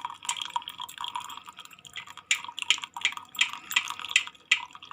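Hot milk kadha being poured through a small strainer into a glass, trickling and dripping in uneven splashes.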